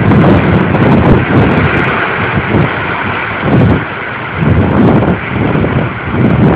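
Hurricane wind gusting through trees and buffeting the microphone, rising and falling in surges every second or two.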